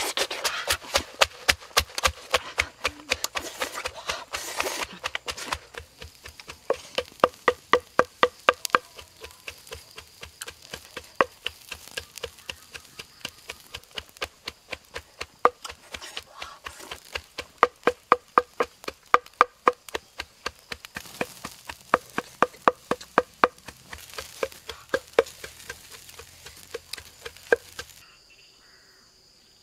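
Wooden pestle pounding red chili peppers in a wooden mortar: repeated knocking strikes, about three a second, in runs with brief pauses. The pounding stops near the end.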